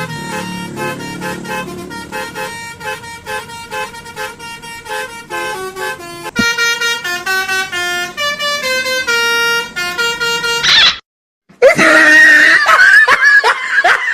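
Telolet bus horn (Basuri type) playing a tune of stepped, held notes, louder from about six seconds in. After a short break near eleven seconds, a louder stretch of wavering, bending tones follows.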